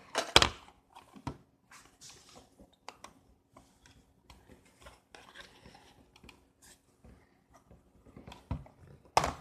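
Scattered clicks, taps and knocks of small objects being handled, the loudest about half a second in and again near the end.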